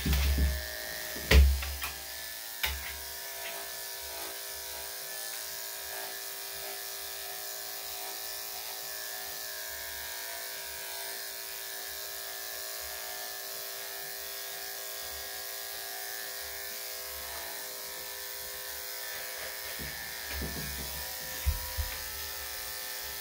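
Corded electric dog-grooming clippers running with a steady hum as they shave a small dog's coat. A loud knock comes about a second and a half in, and a few low thumps come near the end.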